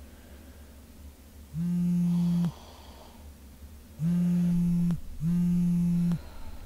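A steady low buzz sounds three times, each about a second long, the last two close together.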